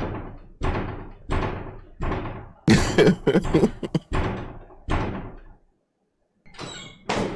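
A run of loud bangs, about one every two-thirds of a second, each with a short echoing tail and a quicker cluster about three seconds in, then a pause of about a second near the end.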